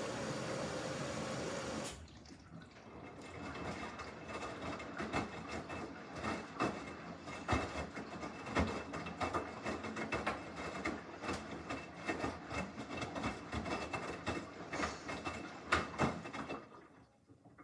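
Samsung front-loading washing machine in its wash cycle: a steady rush of water filling cuts off suddenly about two seconds in, then irregular sloshing and splashing as the drum tumbles the wet load, stopping near the end.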